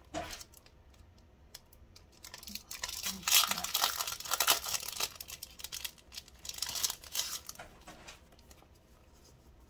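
Clear plastic cellophane sleeve crinkling and crackling as it is opened and planner sticker sheets are pulled out of it. The sound is loudest from about three seconds in to about seven seconds.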